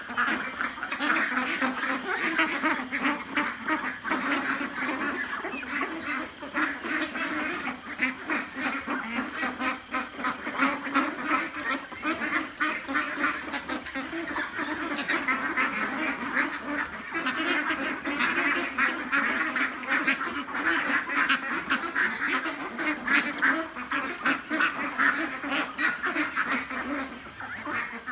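A flock of 40-day-old ducks quacking and chattering continuously as they feed, with many small clicks mixed in.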